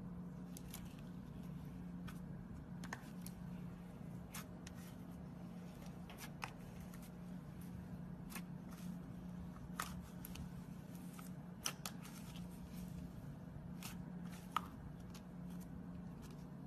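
Glitter slime being handled and played with: irregular small clicks and pops, a few seconds apart, over a steady low hum.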